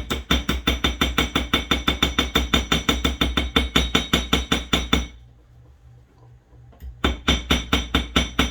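Ball peen hammer tapping rapidly on a small piece of thin sheet brass, about six light metallic blows a second with a bright ring, peening it into a curved end cap. The tapping stops about five seconds in and starts again two seconds later.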